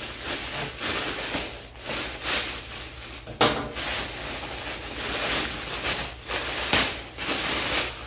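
Rustling and crinkling of gift packaging being unwrapped by hand, in uneven handling strokes, with a sharper knock about three and a half seconds in and another near seven seconds.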